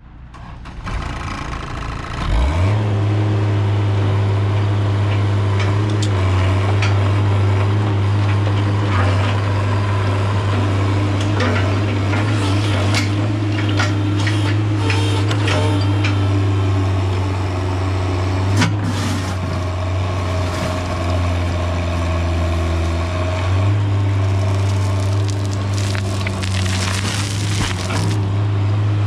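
2005 Terex HR16 mini excavator's diesel engine catching and settling to a steady run about two seconds in, then working the hydraulics as the bucket digs into a dirt pile. Scraping and clattering of soil and stones runs on top, with a sharp knock about two-thirds of the way through.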